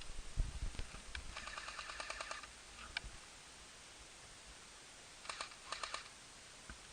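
Airsoft guns firing short bursts of rapid clicks, a longer burst in the first couple of seconds and a shorter one about five seconds in, with a few low thumps at the start.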